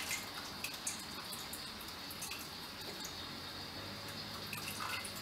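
Hot sparge water trickling slowly and steadily from a stainless saucepan onto the grain bed in a plastic lauter bucket while a homebrewer sparges the mash.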